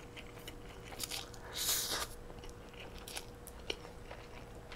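A person slurping noodles in from chopsticks, loudest about a second and a half in, then chewing them with small wet clicks, close to the microphone.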